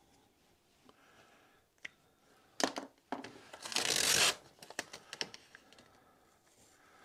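Double-sided golf grip tape being peeled and handled on a shaft: a rasping tearing sound a little over a second long around the middle, with a few light clicks and taps before and after it.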